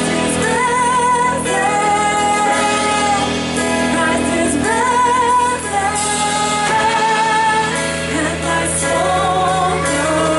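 Church worship band playing a song with sung vocals: long held sung notes with vibrato over steady instrumental backing.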